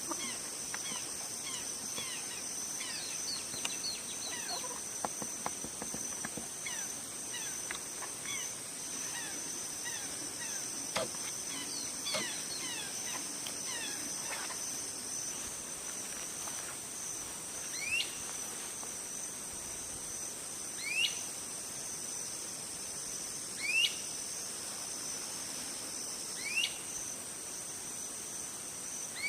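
Outdoor countryside ambience: a steady, high-pitched drone of insects throughout, with birds chirping over it. In the first half many short chirps overlap; from about halfway one bird gives a single rising call, repeated about every three seconds.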